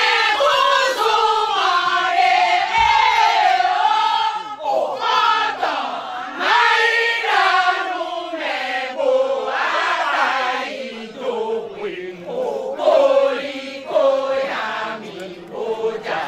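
A group of women singing a chant together in phrases, the voices moving up and down in pitch, with short breaks between phrases.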